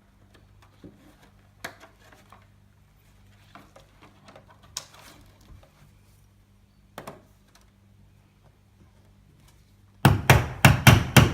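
Small clicks and rustles of brass split rivets and snap bases being handled against plastic armour. Near the end comes a rapid run of sharp, loud taps, about six a second: the rivets' tangs being spread and set.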